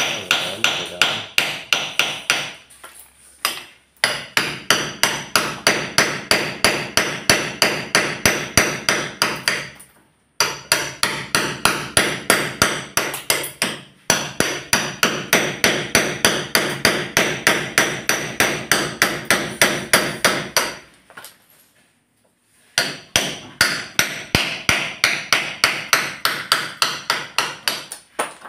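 Claw hammer striking a steel chisel in fast, steady blows, about four a second, in runs of several seconds with short breaks about 3 seconds in, 10 seconds in and 21 seconds in.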